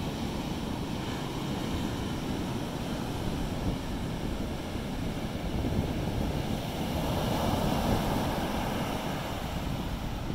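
Ocean surf breaking and washing up a sandy beach in a steady wash of noise, with wind buffeting the microphone.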